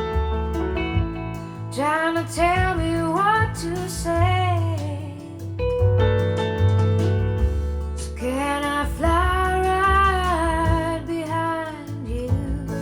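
Slow, soft song with a female voice singing two long wordless phrases over sustained accompaniment and a steady bass line.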